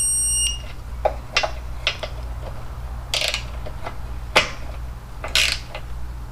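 An electronic torque wrench's high beep ends about half a second in as a disc caliper bracket bolt reaches 30 foot-pounds. It is followed by about six scattered sharp ratchet clicks and metal tool knocks.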